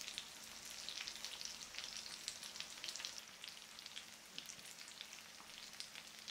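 Spice-coated fish pieces shallow-frying in hot oil in a frying pan: a steady, soft sizzle with many small crackles and spits of oil.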